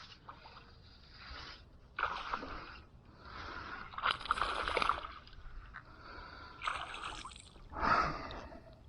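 Water splashing and sloshing in several short bursts as a hooked small smallmouth bass thrashes at the surface while it is brought to the kayak.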